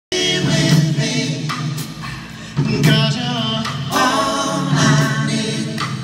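Male vocal quartet singing sustained chords in harmony, live through the theatre sound system, in three phrases with new ones beginning about two and a half and four seconds in.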